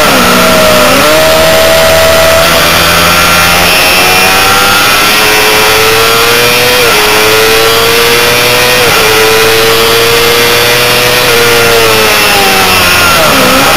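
A Honda CBR600RR's inline-four engine, heard onboard at full racing revs with a raspy, high-revving tone. The pitch drops sharply as the bike comes through a corner, then climbs under hard acceleration, dropping abruptly twice about two seconds apart as it shifts up. It eases off and dips sharply again near the end. Wind rushes over it throughout.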